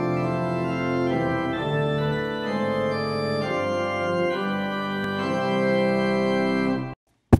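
Organ playing sustained chords that change every second or so, cutting off abruptly near the end, followed by a single sharp click.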